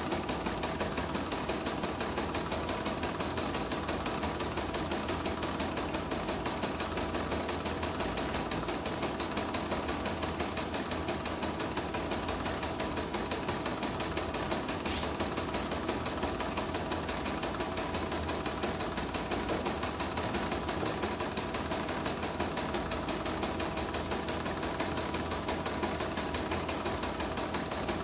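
Portable computerized embroidery machine, its casing opened up, stitching a design: a steady, fast, even rhythm of needle strokes.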